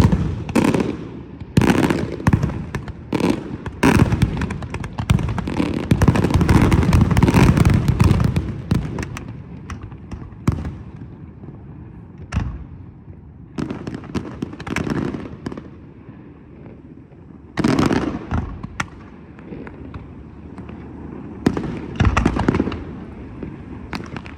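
Fireworks display: aerial fireworks bursting, a rapid barrage of bangs for the first several seconds, then single bangs a second or two apart with a rumble between them.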